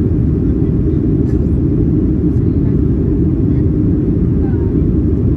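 Steady low roar inside the cabin of a Boeing 737-700 climbing out after takeoff: its CFM56-7B engines running at climb power, heard through the fuselage from a seat over the wing.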